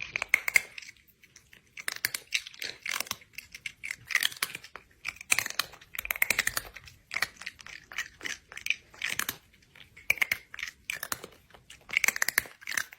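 A cat chewing and crunching on something close to the microphone, a steady run of crackly bites roughly one to two a second.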